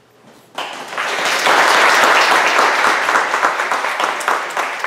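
Audience applauding: many hands clapping, starting suddenly about half a second in, strongest in the middle and tapering off near the end.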